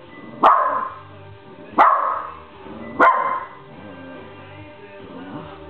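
West Highland white terrier barking three times, about a second apart, at pop music playing on the radio; each bark is sharp and trails off, and after the third only the music goes on.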